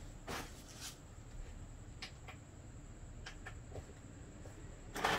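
A few faint knocks and shuffles from someone moving about, over a quiet steady room hum, with a louder knock near the end.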